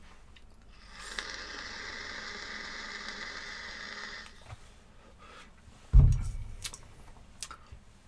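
Vaponaute Le Turbo atomiser coil firing on a draw, a steady hiss for about three seconds, which sounds terrible to the vaper, who takes it for a flooded deck or a coil sitting too close to the air hole. About six seconds in there is a loud low thump, then a few light clicks.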